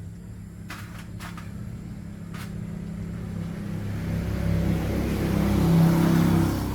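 A motor running with a low hum and a rushing sound that grows steadily louder for about six seconds, then falls away. A few sharp clicks come in the first couple of seconds.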